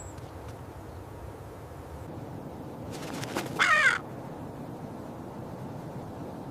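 A steady faint outdoor hiss, broken once about three and a half seconds in by a single short bird call with a wavering pitch.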